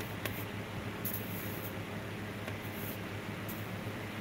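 Steady low hum with an even hiss, as of a small fan or motor, with a faint click and a couple of brief high hisses.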